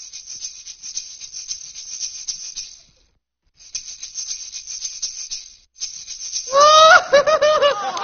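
Maraca shaken in quick rattling strokes, breaking off briefly about three seconds in and then starting again. Near the end, a louder run of swooping pitched notes comes in.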